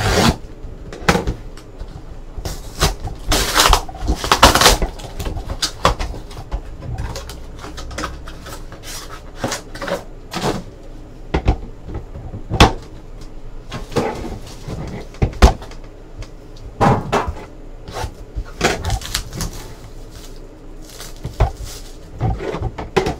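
Shrink-wrap being peeled off a sealed trading card box, with crinkly rustling about three to five seconds in. Irregular taps, clicks and knocks follow as hands handle the cardboard box and its lid.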